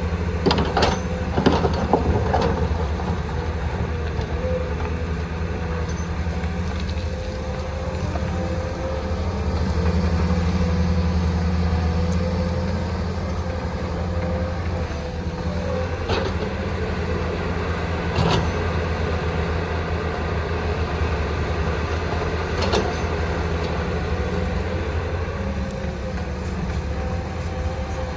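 Excavator diesel engine running steadily, with a thin steady whine above the rumble. A few sharp knocks cut through: a quick cluster in the first couple of seconds, then single ones further on.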